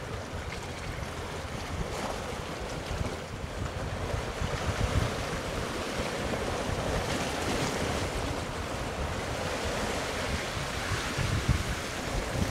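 Wind buffeting the microphone in uneven gusts over a steady wash of sea waves.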